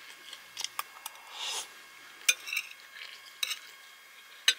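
Fork clinking and scraping against a ceramic plate while scooping fried rice: several sharp separate clicks, the loudest near the end, with a short soft rustle about a second and a half in.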